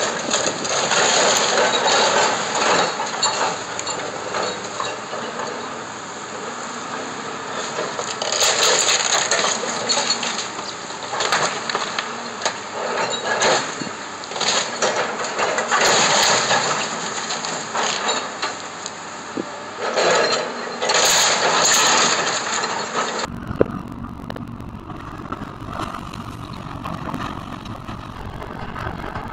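Kobelco hydraulic excavator demolishing a wood-framed building: timber cracking and breaking, and debris crashing down in repeated bouts over the machine's running engine. A little over twenty seconds in, the sound cuts to a quieter stretch of mostly engine with lighter crunching.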